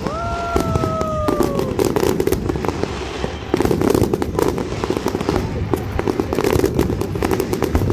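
Large aerial fireworks display: a dense, rapid run of crackling bangs and booms from many shells bursting together. A high tone slides down in pitch over the first second and a half.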